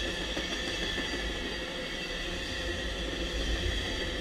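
Amtrak passenger cars rolling past on the rails: a steady rumble of steel wheels on track, with a faint steady high-pitched whine over it.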